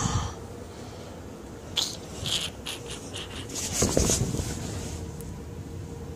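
Handling noise: rustling and a soft bump as the camera is moved about among blankets, with a faint steady hum underneath.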